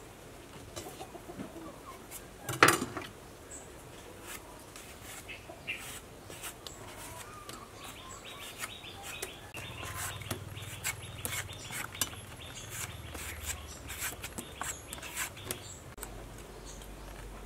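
Small kitchen knife clicking and scraping as a purple mango is peeled, with one sharp knock about two and a half seconds in and a run of quick clicks in the second half. Chickens cluck in the background.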